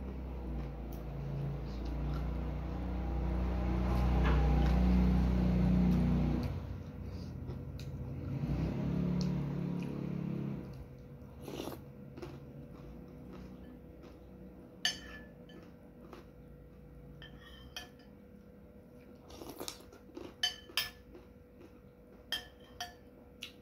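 Close-up eating sounds for the first ten seconds or so, then a metal spoon clinking sharply against a ceramic soup plate about eight times, at irregular intervals, each clink briefly ringing.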